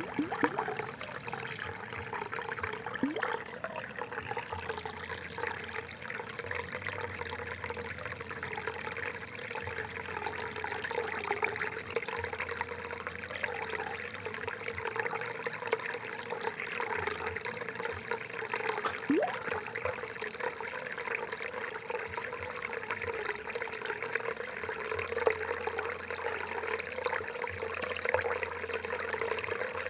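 Water trickling and gurgling steadily, with a few brief rising bubble blips.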